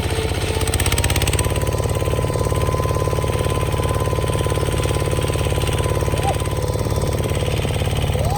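Bulldozer engine running steadily under load, with a fast rattling clatter and a thin steady whine above it.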